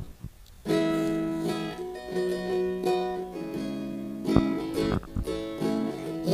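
Strummed chords on an acoustic string instrument, starting about two-thirds of a second in and changing every second or so: the intro of a chord progression for a song.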